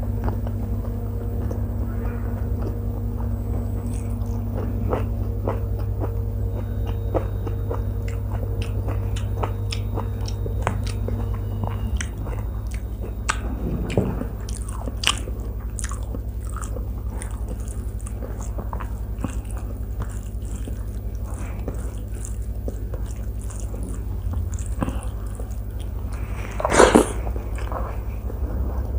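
Close-miked chewing and wet mouth clicks of a person eating rice and vegetable curries by hand, over a steady low hum. A faint steady tone in the hum stops about twelve seconds in, and a brief louder mouth sound comes near the end.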